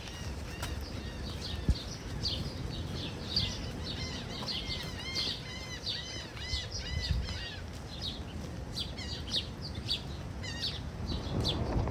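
Many small birds chirping in quick, overlapping, arched notes, thinning out toward the end, over a steady low rumble.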